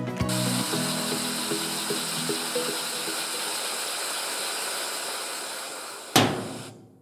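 Wooden double-acting air engine running on compressed air: a steady hiss of air passing through its slide valve and exhausting as the flywheel turns. A sharp knock comes about six seconds in, then the sound dies away.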